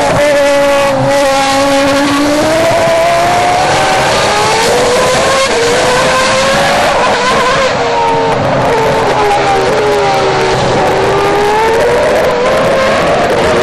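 Red Bull Formula One car's engine revving hard, its pitch rising and falling again and again as the car spins its rear wheels on wet tarmac. A hiss of spray and tyres sits under the engine note.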